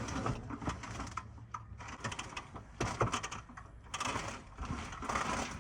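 Remote-control brush mower clattering and clicking irregularly as it is driven up to be loaded, its engine humming low in about the first second.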